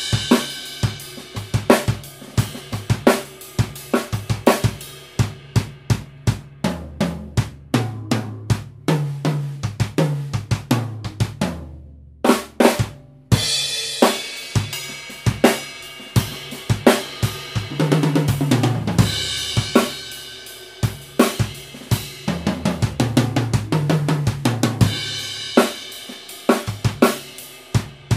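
Mapex Meridian Maple drum kit (10, 12 and 14 inch toms, 22 inch kick) played in a steady groove on kick, a 1966 Ludwig Supraphonic snare, hi-hat and cymbals. Several fills roll down the toms from high to low pitch, with a brief break about halfway through before the playing comes back in.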